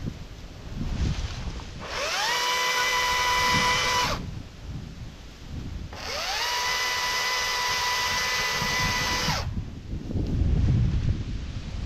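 Cordless drill running in two bursts, about two and three seconds long, each spinning up quickly to a steady high whine. Low rustling and handling noise sits between the bursts.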